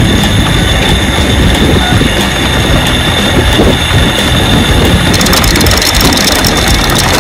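Electric anchor windlass hauling in the anchor, its motor running steadily as the chain rode is pulled up over the bow roller and onto the deck.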